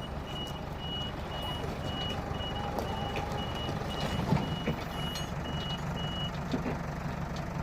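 Electronic beeper sounding a high, steady beep about twice a second, which stops about six seconds in, over a steady low engine hum.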